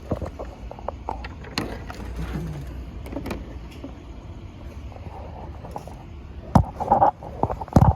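Scattered clicks and light knocks of hands working at the fuel injectors in an engine bay, moving meter test leads onto an injector connector, over a low steady hum; a louder cluster of knocks comes near the end.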